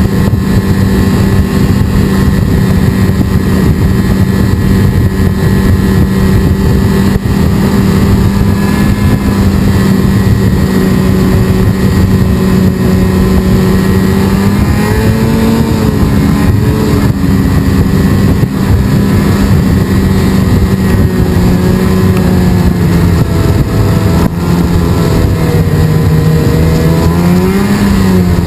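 Snowmobile engine running loud and steady at cruising speed, heard from the rider's seat. Its pitch wavers and dips about halfway through as the throttle changes, then rises briefly near the end.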